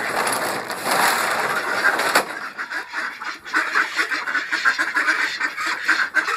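A flock of domestic ducks quacking, many short calls overlapping, starting about two seconds in after a stretch of rustling noise.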